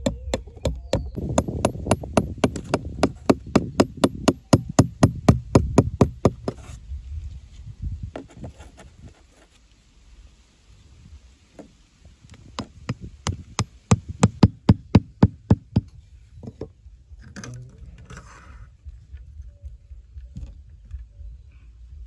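Hammer tapping a bent wire staple down through the floor of a cardboard box into the dirt: a quick, even run of blows, about four or five a second, for the first six seconds or so, then a second shorter run about halfway through.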